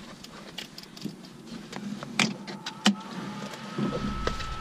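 Clicks and knocks of aviation headsets and their cords being handled in a small airplane's cockpit. About three seconds in, a steady high-pitched electric whine starts, rising briefly and then holding.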